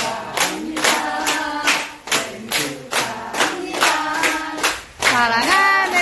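A group of men and women singing a birthday song together, clapping in time at a steady two to three claps a second.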